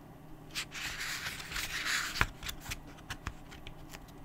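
A book page being turned: a papery rustle of about a second and a half ending in a sharp snap about two seconds in, followed by a few light clicks.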